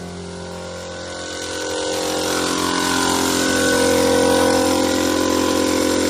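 A motor running steadily, growing louder about two seconds in as a strong hiss joins it.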